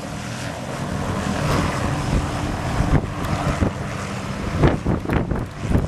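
Helicopter hovering low, a steady low engine and rotor hum under heavy wind noise on the microphone. Several strong wind buffets thump the microphone in the last second or two.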